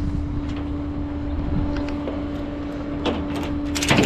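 A vehicle engine idling, a steady low rumble with a constant hum over it, broken by a clatter of knocks near the end.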